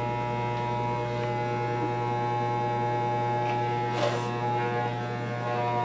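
Electric hair clippers running with a steady buzzing hum, left on between passes. A short breathy sound about four seconds in.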